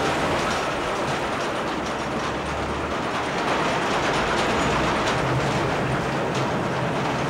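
Heavy coal-mining machine working at the face underground: a steady, loud mechanical din with a light rattle of clicks through it.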